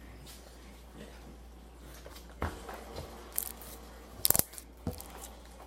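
Slime being handled, with a few short scattered crackles and clicks; the loudest comes about four seconds in.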